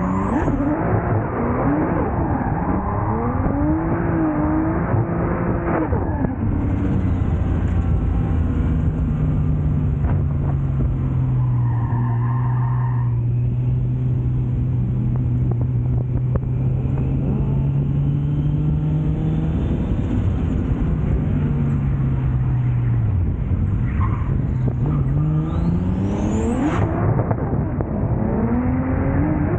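Nissan S14 drift car's RB25 straight-six engine heard from a camera mounted on the car. The revs rise and fall for the first several seconds, then hold at a steady pitch for about twelve seconds, before dropping and climbing again near the end.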